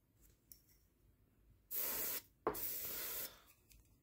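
Two short bursts of hissing about halfway through, the second a little longer than the first.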